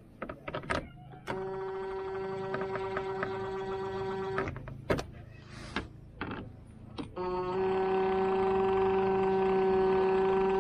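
Cordless drill motor running steadily in two runs of about three seconds each, driving self-tapping screws, the second run louder; short clicks and knocks between them.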